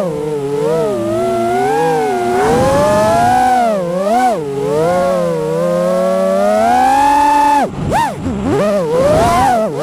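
FPV quadcopter's brushless motors whining, the pitch rising and falling continuously with the throttle. About three quarters of the way through the pitch falls away sharply, then several quick surges follow.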